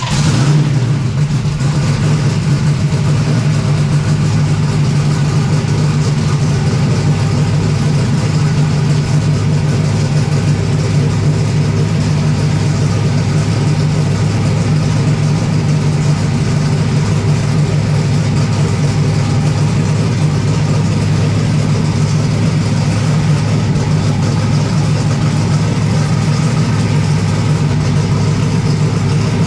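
Twin-turbocharged V8 race engine idling steadily.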